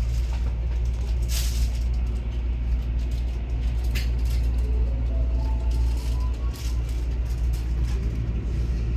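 Electric JR commuter train heard from inside the carriage as it pulls away from the station: a steady low rumble, with two short sharp sounds in the first four seconds and a traction-motor whine that rises in pitch about five seconds in.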